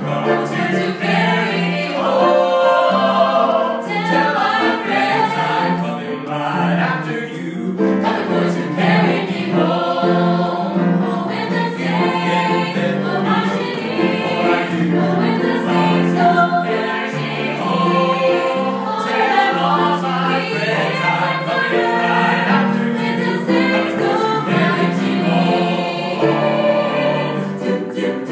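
A small mixed group of men's and women's voices singing a Christian song in close harmony through microphones, with keyboard accompaniment.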